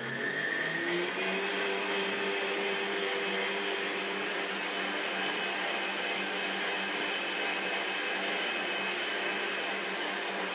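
Magimix countertop blender motor starting up, its pitch rising over about the first second, then running steadily as it whips hot coffee with butter and coconut oil into a froth.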